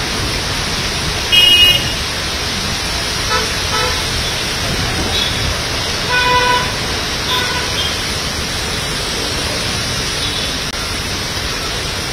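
Steady hiss of heavy rain and traffic on a waterlogged road, with several short vehicle horn toots, the loudest about a second and a half in and a longer one about six seconds in.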